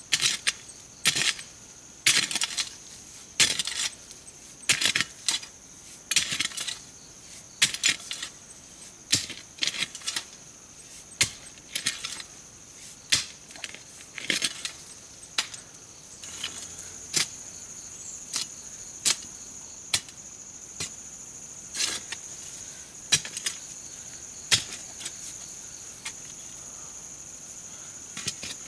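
Long-handled hoe blade chopping into soil, about one stroke a second, the strokes lighter in the second half. A steady high chirring of crickets runs underneath.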